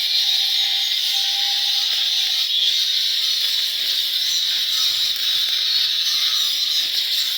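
Welding arc burning steadily, a continuous hiss with no breaks.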